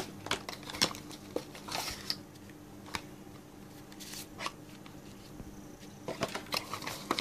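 Cardboard box inserts and paper booklets being handled: scattered light taps and short rustles, over a faint steady hum.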